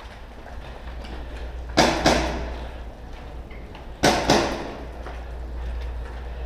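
Airsoft gun fired in two quick double shots, about two seconds apart, each shot a sharp crack with a short echo.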